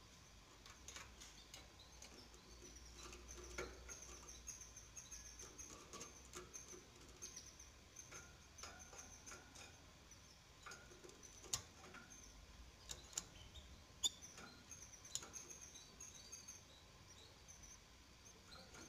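Faint high-pitched peeping of five-day-old canary nestlings, many short calls in quick succession, broken by a few sharp clicks.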